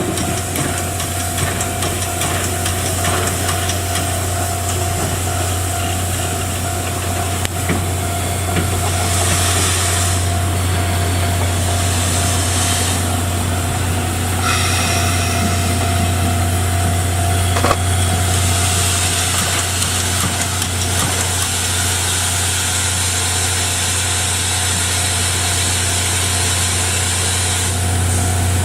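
Steam locomotive standing with steam up: a steady low hum and a constant tone, with hissing about a third of the way in and again through the second half.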